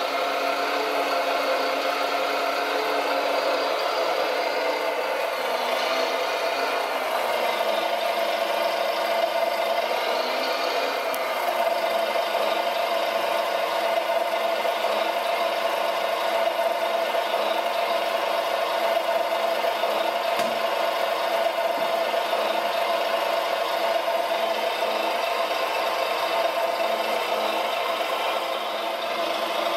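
Scale RC Volvo L250G wheel loader lifting a model truck chassis, its small electric motors whirring steadily with a steady engine-like hum. A whine rises and falls in about the first ten seconds as the loader works.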